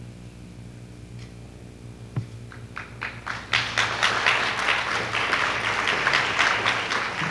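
Audience applauding: a few scattered claps about two and a half seconds in build to full applause a second later, over a steady low hum.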